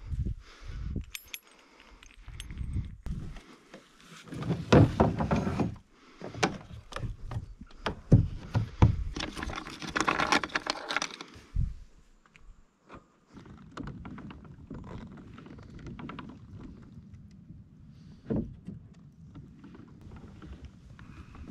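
Clattering, knocking and rattling of fishing gear being handled and loaded into a Hobie kayak, with hard thunks against the hull. From just past halfway it settles into a quieter, steady low rushing with a few small clicks.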